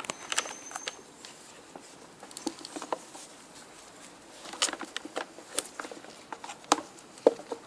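Irregular light clicks, taps and rustles of hands working at the wiring and plastic parts of a Numatic vacuum cleaner's motor housing, with a sharper click now and then.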